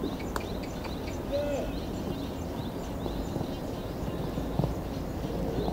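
Outdoor ambience: a steady low rumble with small birds chirping over it, and a short low call that rises and falls about a second and a half in.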